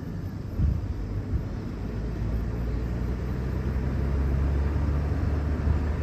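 Steady low vehicle rumble, growing slowly louder after about half a second.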